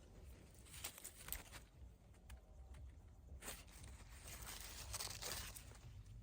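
Faint rustling and crackling of hazel leaves and branches being handled, in scattered short crackles over a steady low rumble.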